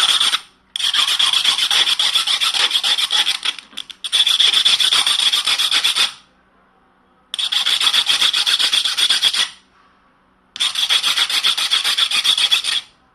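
Hand file rasping on the metal contact piece of a welding electrode holder, in spells of quick back-and-forth strokes about two seconds long with short pauses between. The contact is being filed so that the electrode touches it properly.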